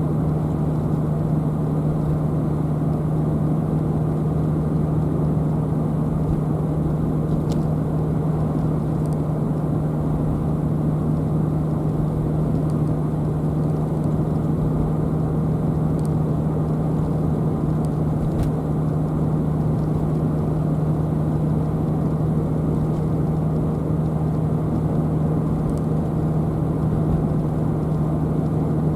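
A car driving at a steady speed: even road and tyre noise with a constant low hum.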